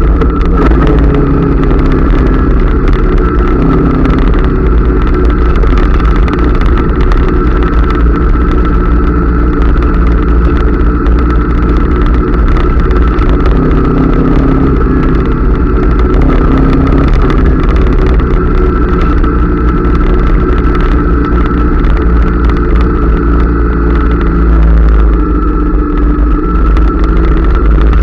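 Honda CRF250L's single-cylinder four-stroke engine running under way, its pitch rising and falling with the throttle, over a heavy low rumble.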